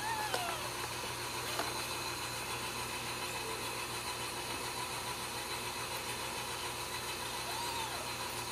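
Faint, short high mews from newborn Ragdoll kittens, one at the very start and another near the end, over a steady low hum and hiss.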